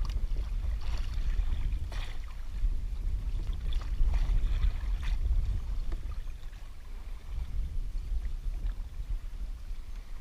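Wind rumbling on the microphone, with several short scraping sounds in the first five seconds as a knife cuts yellowtail snapper fillets into small pieces.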